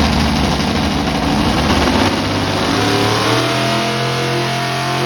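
Pulling-truck engine running loud, a deep rumble at first that gives way about three seconds in to a steady engine drone whose pitch slowly falls.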